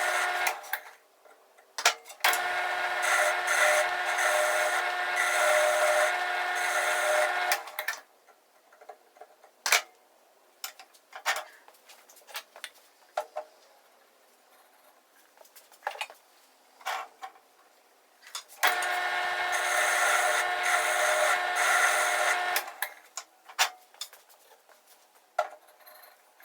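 A power tool working wood in two runs of several seconds each, with a steady motor tone under a rasping noise; each run starts and stops abruptly. Between the runs there are scattered knocks and clicks of parts being handled.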